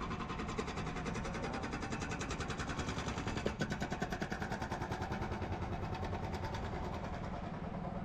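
Motorcycle engine running steadily while riding, heard from on the bike, its firing pulses in a fast, even rhythm.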